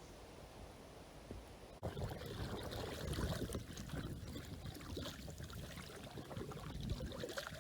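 A faint hush, then after about two seconds an abrupt switch to river water splashing and gurgling, with many small irregular splashes.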